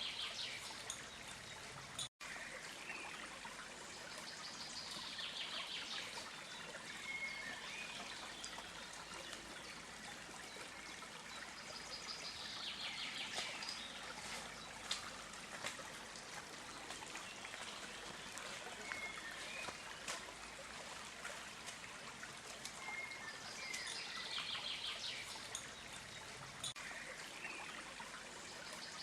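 Stream water trickling steadily, with a songbird giving short trilled calls every several seconds. The sound cuts out for an instant about two seconds in.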